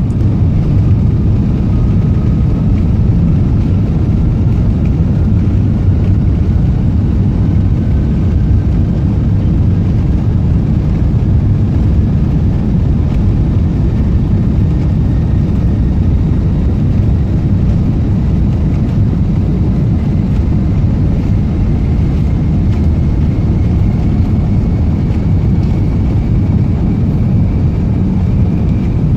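Airbus A380 cabin noise: the steady rumble of the jet engines and airflow heard from inside the cabin, with a faint whine slowly rising in pitch.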